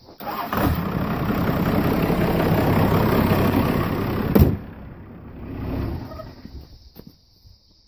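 Dodge D250 pickup's Cummins diesel engine running loudly for about four seconds, then cutting off with a sharp click; fainter engine noise trails after.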